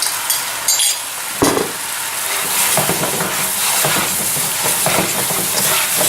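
Curry paste sizzling in a hot frying pan as ground spices are added and stirred in, a utensil scraping the pan in repeated short strokes. A few knocks in the first second and a half, the loudest about a second and a half in.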